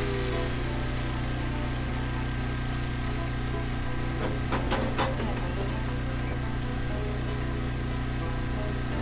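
An engine running steadily at idle, with a few brief knocks about four and a half to five seconds in.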